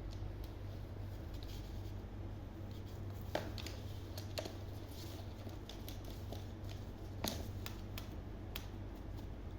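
Scattered light clicks and taps, about half a dozen, over a steady low hum, from a baby parrot moving about at play.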